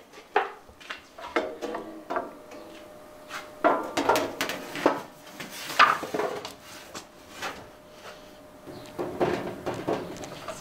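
Thin sheet steel wobbling, rattling and clanking as it is handled and laid into a sheet-metal bending brake, with several sharp metal knocks as it meets the brake's bed and clamp.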